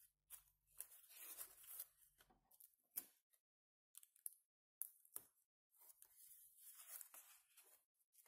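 Faint rustling and scraping of a sheet of origami paper being folded and creased by hand, in several stretches, with one sharp tap about three seconds in.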